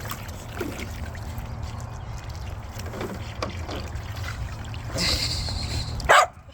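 Water trickling and splashing in a dog's kiddie pool over a steady low rumble. Near the end a short loud sound is heard and the rumble cuts off abruptly.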